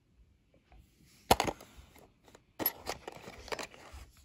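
Handling of a cardboard toy-kit box with a small metal spanner and hex key lying on it: a single sharp knock about a second in, then a run of scraping and clattering clicks.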